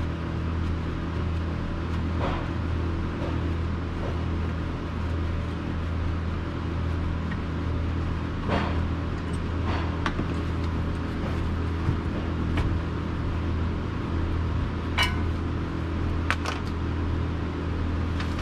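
A steady low mechanical hum runs throughout. Over it come a few scattered light metallic clinks as a brake caliper and hand tools are worked off the rear brake bracket.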